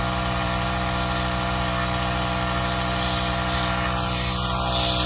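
Komatsu G260 two-stroke brush-cutter engine, 34 mm bore, running steadily while it drives a 90 mm push pump through a gearbox.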